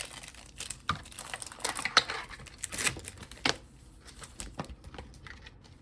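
Foil wrapper of a Yu-Gi-Oh booster pack crinkling and tearing as the pack is opened and the cards pulled out: a run of sharp crackles and clicks that dies down after about three and a half seconds.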